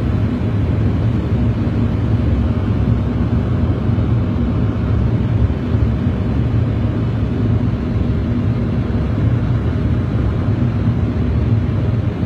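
Steady rumble of airflow and engines heard inside an airliner's cockpit on final approach.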